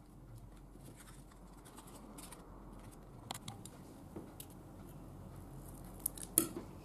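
Scissors snipping a small piece of white material: a few faint, sharp snip clicks spread through, the loudest pair near the end.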